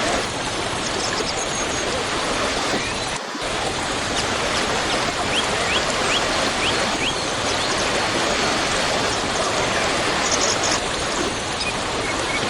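Waterfall rushing steadily, with small birds chirping over it: a run of quick short chirps in the middle and high twittering near the end. The rush drops out for a split second about three seconds in.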